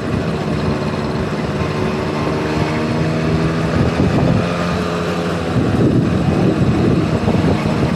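Honda Motocompo's big-bore 65cc two-stroke engine running under way, its note rising and falling slightly, with wind noise on the microphone.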